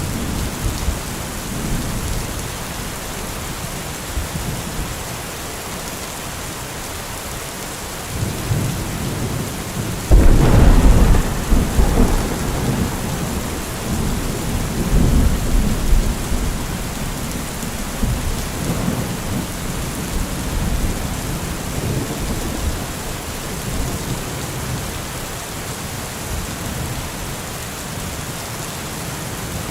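Steady rain with rolling thunder. A thunderclap builds about eight seconds in, peaks loudly around ten seconds, then rumbles on and fades over the next several seconds.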